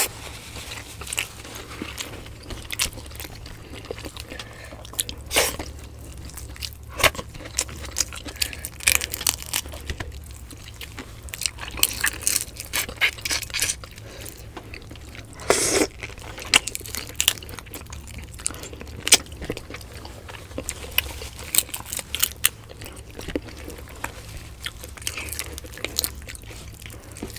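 Close-miked chewing and eating sounds of people eating grilled fish and rice with their hands: wet mouth clicks, lip smacks and occasional crisp bites at irregular intervals, with a slightly louder burst of chewing about halfway through.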